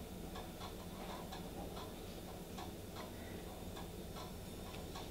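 Faint light ticking clicks, unevenly spaced, a couple a second, over a low steady hum.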